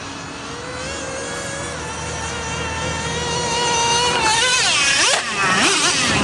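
Traxxas Revo 3.3 nitro RC truck's small two-stroke glow engine buzzing as the truck drives closer, growing steadily louder. About four seconds in it starts revving rapidly up and down as it comes near.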